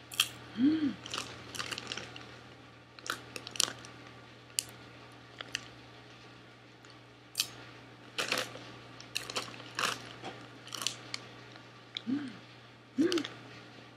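A person chewing mouthfuls of crunchy cheese-coated Cheetos popcorn, with irregular sharp crunches and crackles and a few short closed-mouth hums. The foil snack bag crinkles as it is handled.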